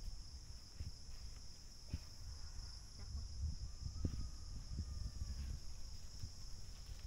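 Leafy branches of a wild eggplant bush rustling, with a few small stem snaps, as the bush is pulled and bent. A steady high-pitched insect drone runs underneath.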